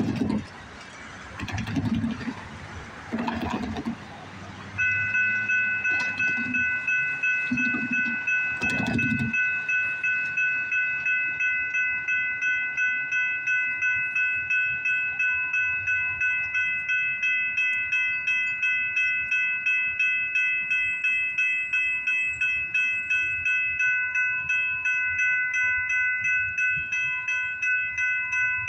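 Railroad grade-crossing warning bell starts about five seconds in and rings evenly at about two strokes a second, warning of an approaching train. Low rumbling noise comes before it.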